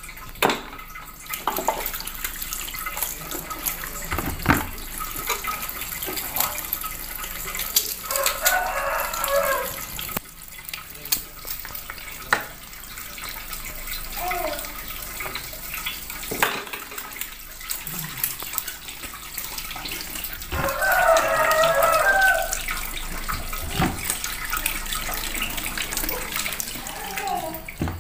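Kitchen tap running into a stainless-steel sink as peeled cassava pieces are rinsed by hand, with occasional knocks as pieces are handled and dropped into a bowl. Two drawn-out calls sound in the background; the second, in the latter part, is the loudest.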